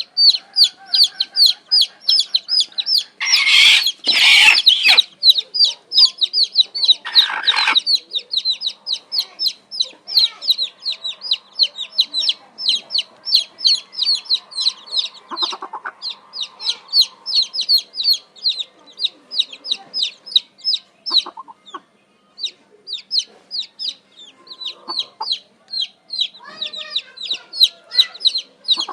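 Chicks peeping continuously, each peep a short, high, falling note, several a second. Louder, harsher bursts come about three to five seconds in and again around seven seconds.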